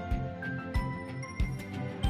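Background music with a steady beat, about three beats every two seconds, under sustained melodic notes.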